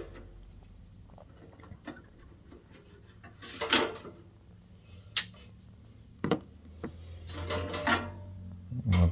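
Clicks and knocks of an electric heater's parts being handled while its fan is taken off, then a low steady hum starting about two-thirds of the way through.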